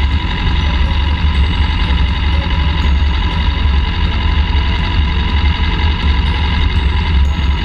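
Piper L-4 Cub's engine and propeller running steadily at low power, heard from inside the cockpit as the aircraft taxis.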